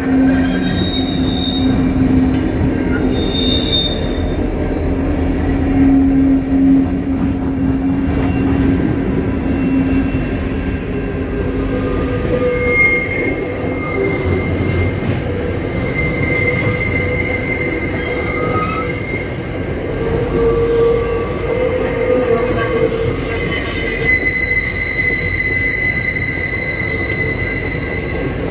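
Freight train wagons rolling past at close range: a steady, heavy rumble of wheels on rail, with long high-pitched wheel squeals that come and go, strongest in the second half.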